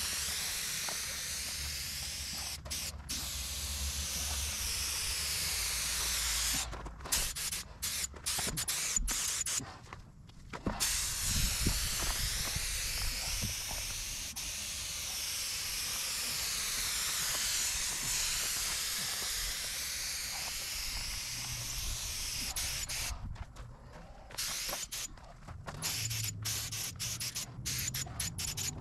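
Paint sprayer hissing as paint is sprayed onto the generator, in long steady passes with the trigger released and pulled again in a run of short bursts about a third of the way through and again near the end.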